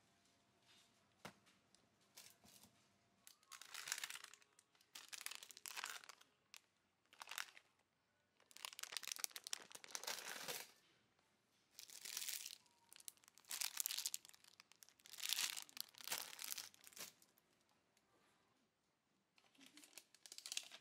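Plastic packaging crinkling and rustling as packaged snacks and stock-pack pouches are handled, in a series of short bursts with pauses between.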